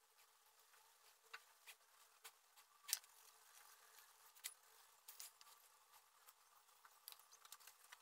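Pencil making short scratching strokes and taps on drawing paper: faint, irregular ticks, with one sharper click about three seconds in.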